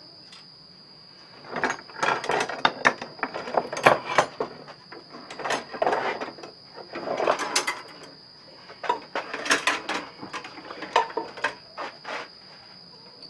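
Steel clanking and rattling in irregular clusters as the frame and springs of a 330 Conibear body-grip trap are handled and worked during spring replacement. A steady high cricket trill runs underneath.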